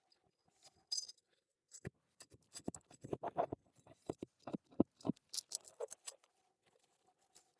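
Irregular handling noise on an asphalt shingle roof during a repair: a quick uneven run of taps and clicks, then a short scrape.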